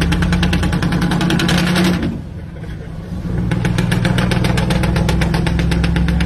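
Scania V8 diesel truck engine run hard under throttle, with a rapid, even exhaust beat and black smoke pouring out; the sound dips briefly about two seconds in, then comes back up to full.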